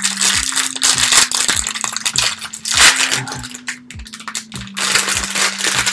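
A sparkly foil blind bag being crinkled and opened in the hands, a dense irregular crackle. Background music with steady low notes plays underneath.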